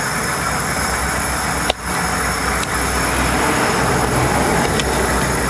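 Treadle-driven pole/flywheel lathe running, its VW Beetle flywheel spinning on a bicycle freewheel hub, giving a steady, loud rumbling whir. A single sharp click about two seconds in, with a couple of fainter ticks later.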